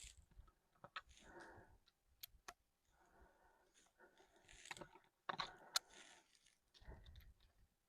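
Faint, irregular metallic clicks from a Ruger Single-Six .22 single-action revolver being loaded one cartridge at a time through the loading gate, the cylinder turned chamber by chamber.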